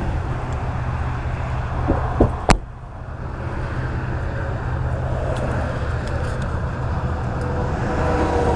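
Vehicle engine and road rumble running steadily, broken about two seconds in by a few knocks and one sharp bang. A faint whine comes in near the end.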